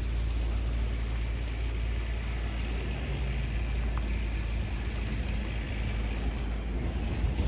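City street ambience in a snowstorm: a steady low rumble of wind on the microphone, with a vehicle passing on the snowy street and swelling for a few seconds around the middle.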